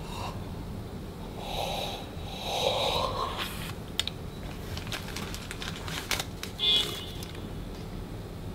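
A man's long, heavy sigh, breathed out over about two seconds, then a few small clicks and one short sharp sound near the end.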